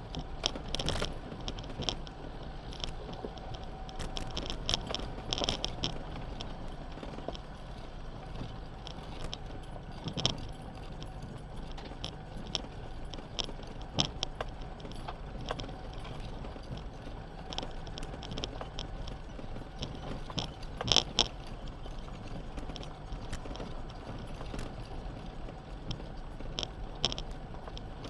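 A 4x4 vehicle's engine running steadily, with irregular clinking and rattling of loose items jangling over a rough track, and a couple of louder knocks about 21 seconds in.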